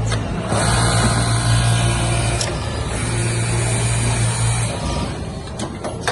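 Automatic pocket setter sewing machine running through a cycle: a steady motor hum with a high hiss over it, stopping a little under five seconds in, followed by a sharp click.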